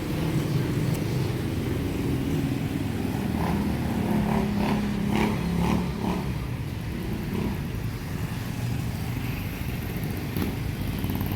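Street traffic: motor vehicles running past with a steady low engine rumble.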